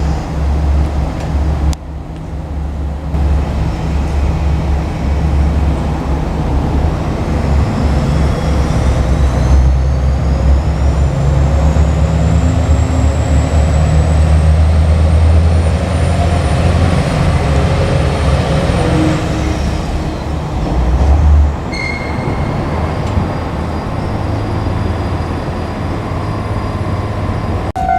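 JR Kyushu KiHa 47 diesel railcars running slowly with a steady low engine rumble. A high thin whine rises slowly in pitch through the middle and fades about two-thirds of the way through.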